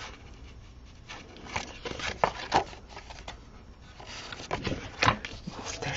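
Cardstock being handled and pressed on a craft mat: light paper rustling and scraping with a few sharp taps, as a freshly glued paper strip is smoothed onto a folded card.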